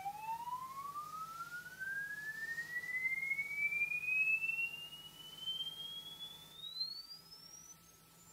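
Swept sine test tone of an audio frequency-response sweep, one pure tone gliding steadily upward in pitch from mid to high. The climb speeds up shortly before the end.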